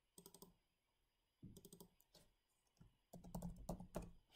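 Faint typing on a computer keyboard: several short runs of keystrokes, the longest near the end.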